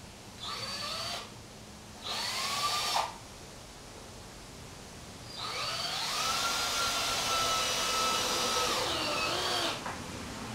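Power drill driving screws into 2x4 lumber: three runs of the motor, two short ones and then a longer one of about four seconds, each whining up to speed and winding down when the trigger is released.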